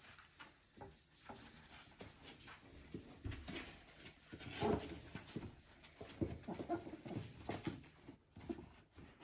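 Three-week-old border collie puppies shuffling and pattering about on small paws, with a few brief squeaks and grunts.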